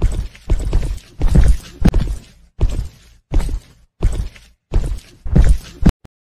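Heavy footsteps at a steady walking pace, about three steps every two seconds, stopping suddenly just before the end.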